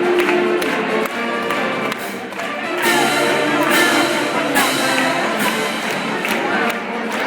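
Live music from a school band, choir and orchestra performing together, with held notes and sharp percussion strokes.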